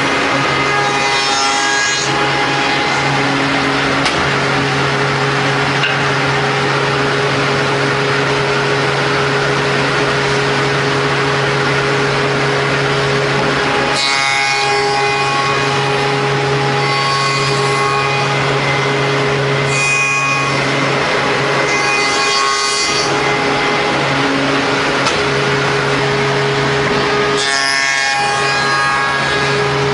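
CNC wood mortising machine running: a steady motor hum over the noisy scrape of its cutter in the wood. The hum breaks off briefly a few times.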